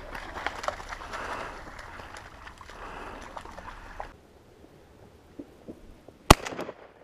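A single loud shotgun blast about six seconds in, followed briefly by a few fainter cracks. Before it come several seconds of rustling with many small clicks.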